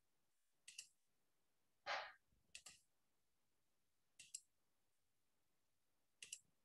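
Faint computer mouse clicks, a handful spread over a few seconds, mostly in quick pairs, with a short soft hiss about two seconds in.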